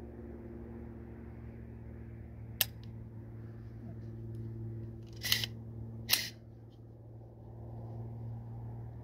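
A single sharp click, then two short rattling clicks about a second apart, over a steady low hum. The clicks are small mechanical handling sounds, not gunshots.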